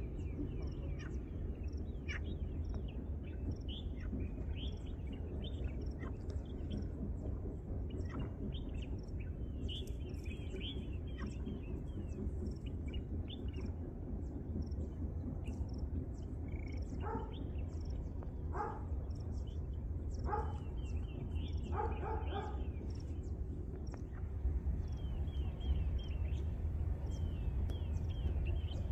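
Small birds chirping and twittering throughout, over a steady low rumble. A few louder short calls from another animal come a little past the middle.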